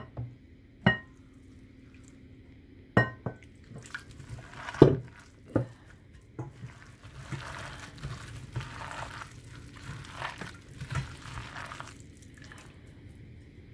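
Water poured from a glass jug into a glass bowl of chopped vegetables and gram flour, with a few sharp glass clinks in the first seconds. Then a hand squishes and mixes the wet pakora batter for several seconds.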